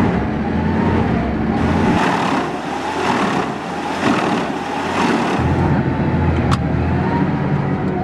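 Mus-Max wood chipper running at working speed: steady engine drone and chipping noise. The deep drone drops away for a few seconds in the middle and comes back, and there is one sharp click about six and a half seconds in.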